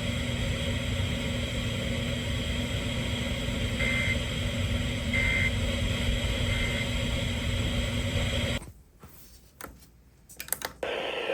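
Radio static with a steady hum from a weakly received broadcast. Through it come three faint, short warbling data bursts about a second apart, the pattern of an Emergency Alert System end-of-message code. Near the end the hiss cuts out to near silence with a few clicks as the receiver changes over, then a different, hissier signal comes in.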